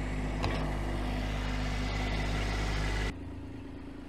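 An engine running steadily at idle, cut off sharply about three seconds in, leaving a quieter low hum.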